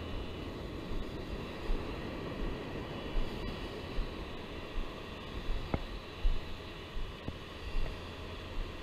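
Steady rumble of wind and ocean surf, with soft low thumps every second or so.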